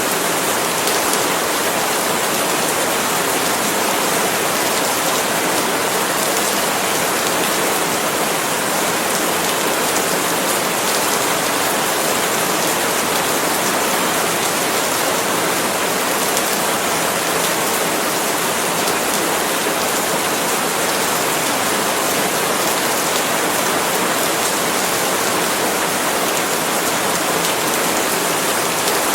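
Steady rain falling on palm leaves, a dense, even patter of drops that keeps up without letting off.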